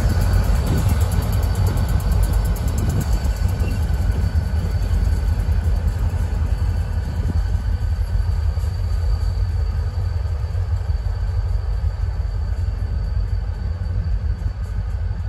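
A consist of diesel locomotives running light, with no cars, rumbling as they move away down the track. The sound slowly fades as they pull off.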